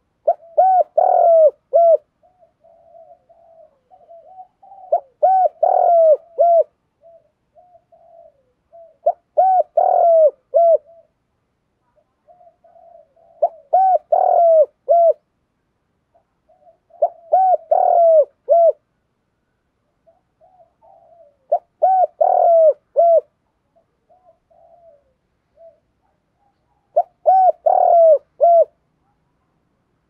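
Spotted dove cooing: a loud phrase of a few quick coo notes repeated about every four seconds, seven times, with quieter low coos between the phrases.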